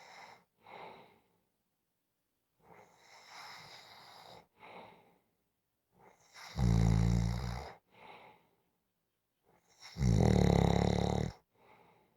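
A sleeper snoring: soft breaths, then two loud snores with a low buzz, about three and a half seconds apart, each lasting just over a second.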